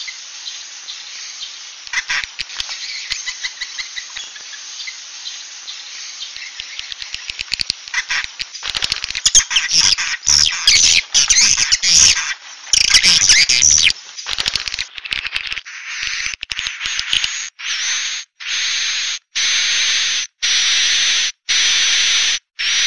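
Swiftlet-house lure recording ('suara inap', played to draw edible-nest swiftlets in to roost) of edible-nest swiftlet calls. Dense twittering chirps give way about eight seconds in to harsh, rasping calls, which in the second half come as a regular series of buzzy calls about one a second.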